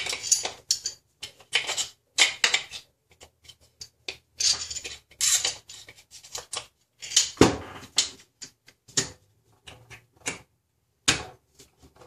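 Steel AK-74 parts being handled and fitted back together by hand: irregular metallic clicks, clacks and short scrapes, with the loudest clack about seven and a half seconds in.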